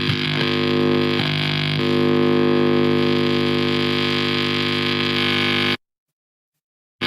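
Distorted electric guitar amplifier sustaining a held chord with a steady buzzing hum. It shifts slightly about two seconds in and cuts off abruptly about six seconds in, followed by a second of silence.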